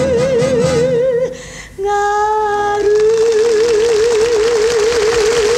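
Female singer holding a long final note with wide, even vibrato over the accompaniment. She breaks off briefly about a second in, then sings a slightly lower note that starts straight and swells into vibrato, held through to the end of the phrase.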